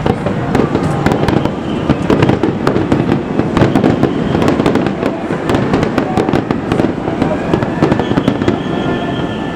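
Fireworks display going off in a dense barrage: continuous rumbling bursts with many sharp crackles and cracks each second. A steady high whine joins near the end.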